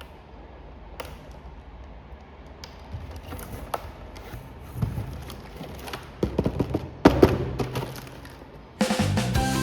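Scattered light taps and clicks, then a run of heavier thumps and knocks, like a plastic toy and its packaging being handled on a hard surface; music starts near the end.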